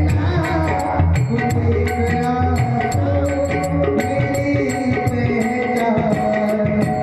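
Devotional bhajan music: a voice singing over tabla, with sustained melodic notes and a steady beat of sharp, high strikes about three times a second.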